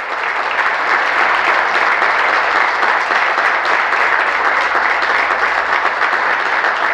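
Steady, dense applause from the members of a legislative chamber clapping their hands.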